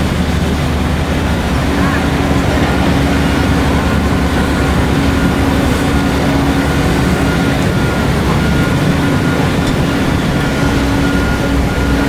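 Heavy diesel engine of earthmoving machinery running steadily: a loud, continuous drone with a constant tone on top.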